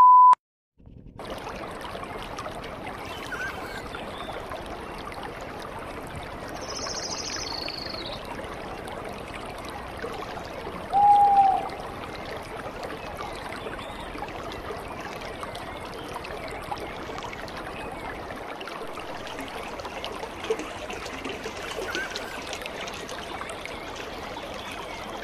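A test-card beep cuts off right at the start. Then shallow water trickles and flows steadily along a concrete canal, with one short, loud call about eleven seconds in.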